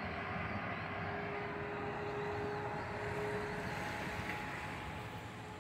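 Steady low rumble and hiss of a car idling, heard from inside the cabin.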